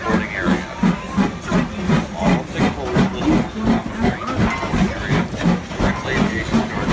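Thomas the Tank Engine locomotive rolling slowly past close by, with a steady rhythmic beat of about three to four a second from its running gear.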